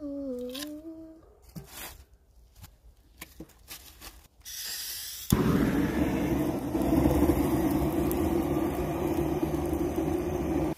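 Portable butane gas torch on a canister, lit about five seconds in and blowing a steady, loud rushing flame into the kindling in a wood-fired stove's firebox. A hiss starts just before it. A voice hums a few notes at the very start.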